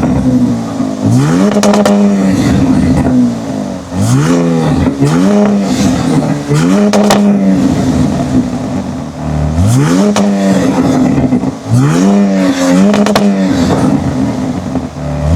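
Ram 1500 RHO's twin-turbo Hurricane inline-six being revved about nine times in quick succession, each rev climbing quickly, holding a moment and dropping back, with some crackles at the top of the revs.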